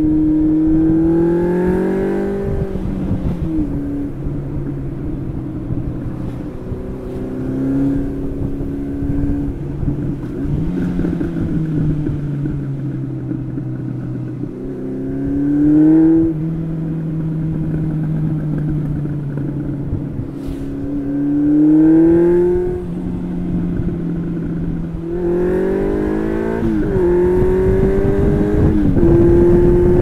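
1992 Honda CB750 Nighthawk's carbureted inline-four, on its stock exhaust run without mufflers, under way on the road. Its note climbs under throttle and drops back at gear changes several times, holding steady between. Wind buffets the microphone underneath.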